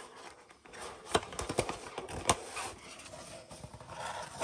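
Cardboard box being opened by hand: the lid tab pulled free and the flaps folded back, a string of sharp clicks and snaps over scraping and rustling cardboard.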